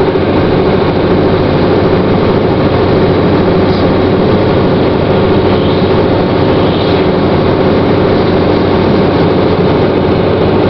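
Steady road noise inside a moving car's cabin: tyres and engine running at an even cruising speed.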